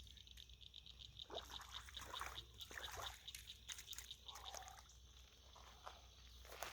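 Faint river water trickling and splashing, with a fast, high ticking, about six or seven ticks a second, that stops about four seconds in.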